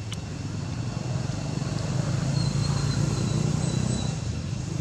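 Low engine rumble of a vehicle running nearby, swelling toward the middle and easing off near the end.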